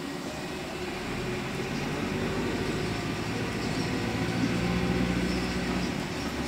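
Volvo 7900A hybrid articulated city bus under way, heard from inside the cabin: the drivetrain drones in steady low tones that grow louder over the first few seconds and drop back near the end.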